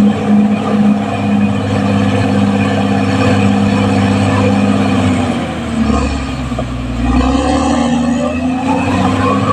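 Caterpillar D6R XL bulldozer's diesel engine running steadily. About halfway through its note drops and deepens, then a rising whine climbs near the end.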